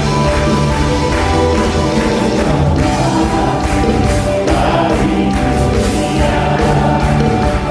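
A choir singing an upbeat gospel praise song with a full backing band, a steady beat and a strong bass line.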